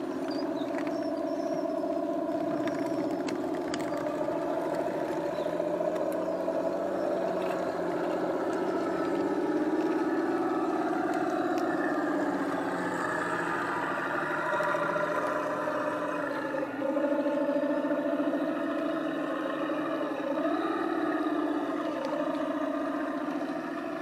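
Radio-controlled model tanks driving past, a steady mechanical running sound from their drives, wavering in pitch a few times in the second half as they manoeuvre.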